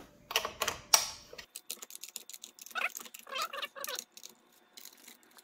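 Ratcheting wrench loosening the metal bolts on the volute of a Polaris PB460 pool booster pump: quick runs of ratchet clicks, with one louder click about a second in.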